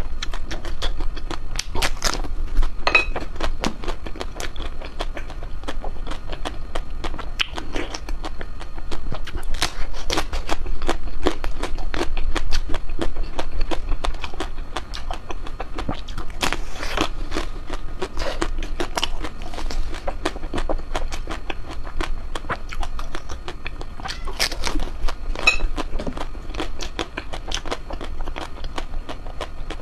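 Eating and chewing ice cream: a steady stream of small wet clicks and crackles from the mouth, broken now and then by a louder bite.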